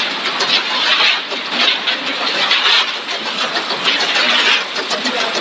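Snack production machinery running: a rotating perforated stainless-steel drum tumbling fried horn-shaped wheat chips, a continuous rushing, rattling noise that swells and eases every second or so.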